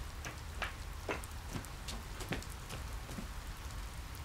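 Steady light rain pattering, with a few sharper single drips scattered through it.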